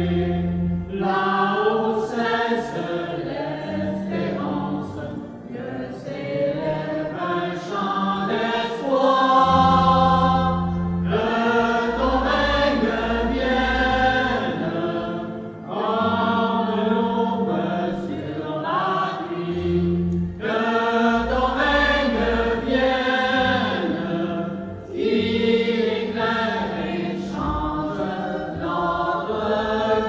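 Entrance hymn of the Mass sung by several voices over low sustained accompanying notes, dipping briefly between phrases.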